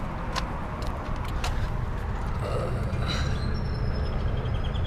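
Goodman central air-conditioner condensing unit running, a steady low hum from its Copeland scroll compressor and condenser fan.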